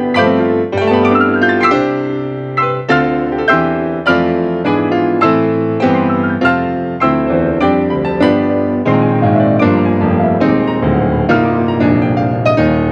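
Acoustic piano playing, a steady flow of struck notes and chords that ring and decay, with a quick rising run of notes near the start.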